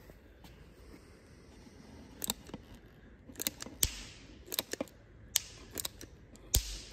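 Sealant gun being pumped by hand, its trigger mechanism clicking sharply about a dozen times at an irregular pace, some clicks in quick pairs, as stiff black Tiger Seal polyurethane adhesive is forced out of the cartridge. The sealant is so thick that the trigger is hard to squeeze.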